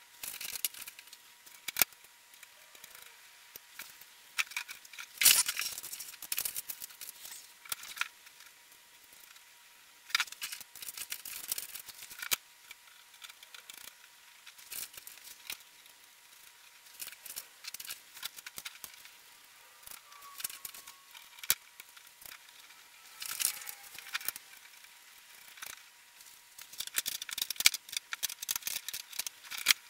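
Sped-up handling noise of sheet-metal cabinet panels and cardboard packing: a rapid, irregular string of clicks, knocks and rustles as glove-port rings are fitted into a steel blast-cabinet panel.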